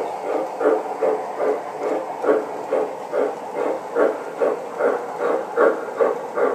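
Electronic steam chuff from the sound system of an MTH Premier O scale model steam locomotive running past, an even hissing chuff about two and a half beats a second.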